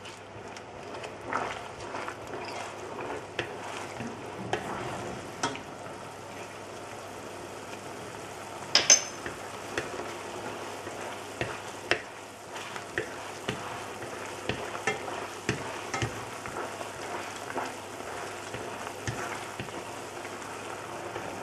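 Sauce boiling over high heat in a stainless steel saucepan while a spoon stirs it to dissolve flour, a steady bubbling hiss with frequent sharp clicks of the spoon against the pan. The loudest is a double knock about nine seconds in.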